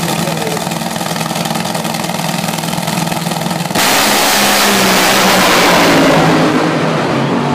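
A nitro Funny Car's supercharged V8 idles on the starting line, then launches at full throttle a little under four seconds in. The launch is a sudden, far louder blast that fades off as the car runs away down the track.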